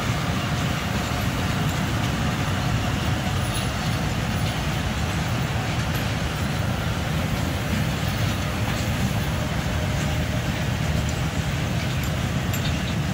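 Passenger train coaches running past at speed: a steady rumble of steel wheels on the rails, with a few faint clicks near the end.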